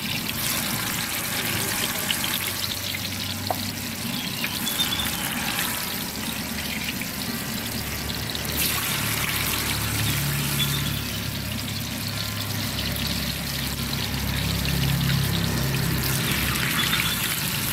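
Hot oil sizzling steadily as batagor (fish-paste-stuffed tofu) deep-fries in a wok, with a low hum joining in about ten seconds in.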